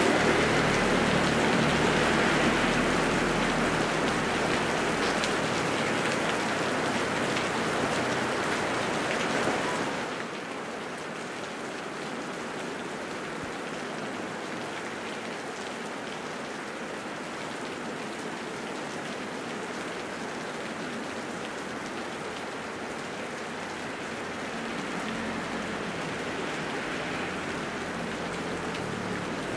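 Heavy rain falling, a dense, even hiss. It is louder and fuller for the first ten seconds, then drops suddenly to a lighter, steady hiss that swells slightly near the end.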